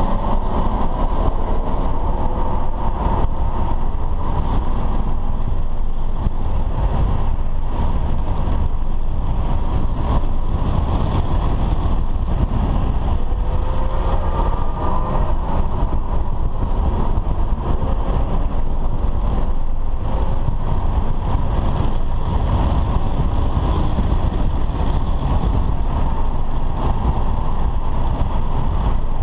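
A BMW F10 5 Series sedan driven hard on a race track, heard from inside the cabin: steady engine, tyre and wind rumble, with the engine note rising in pitch several times as it accelerates.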